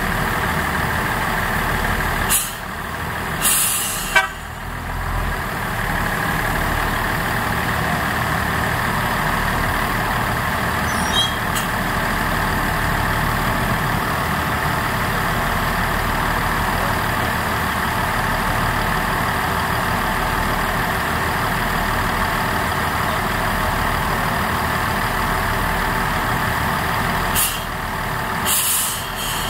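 Diesel railcar engine idling steadily, with a few short hisses of compressed air about two to four seconds in and again near the end. The hisses come while the rescue railcar is being coupled to the broken-down car for towing.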